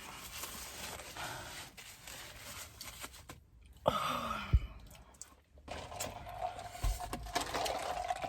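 Rustling and crinkling of food wrapping with crunching, irregular throughout, with a loud sharp crackle about four seconds in and a low knock just after it.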